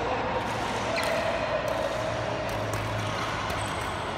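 Steady ambient noise of a large indoor badminton hall, with a low hum running under it and a single faint knock about a second in, as players move about the court between rallies.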